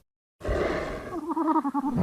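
A designed Pachycephalosaurus call: a long, growling roar starting about half a second in, wavering in pitch through its second half and ending with a loud low burst.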